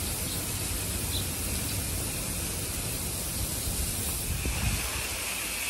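Garden hose with a hose-end sprayer hissing steadily as it sprays the lawn.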